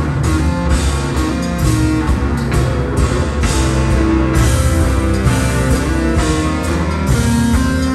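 Live jazz-fusion band playing loudly: an electric bass solo over drums and keyboards, with repeated cymbal and drum hits.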